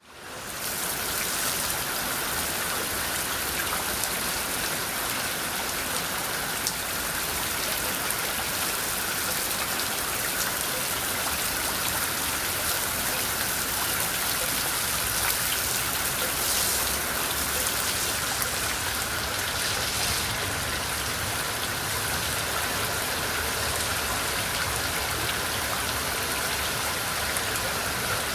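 Steady rain falling, a dense even hiss with scattered fine drop ticks, fading in over the first half second.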